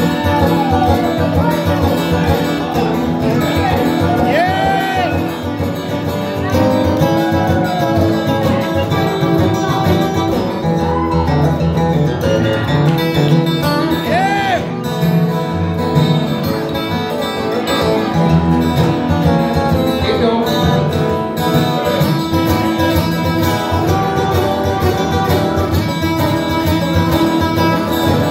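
Two acoustic guitars played together live in a country style, with a few notes bent upward and back.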